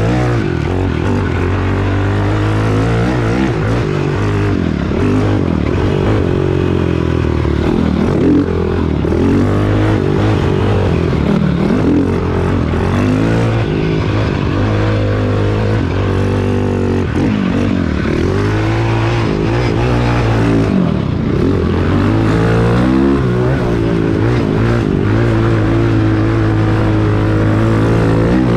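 Cannondale quad's single-cylinder four-stroke engine being ridden hard, its pitch rising and falling again and again as the throttle is worked and it shifts through the gears.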